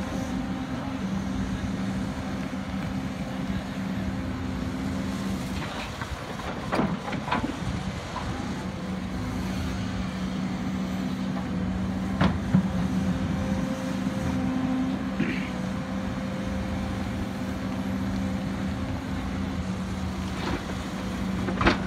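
Hidromek HMK230 H4 crawler excavator's diesel engine running steadily under hydraulic load as it digs and swings, its note easing for a few seconds about six seconds in. Sharp knocks and clatters of the steel bucket against rock come several times, the last near the end as dirt and stones drop into the dump truck's bed.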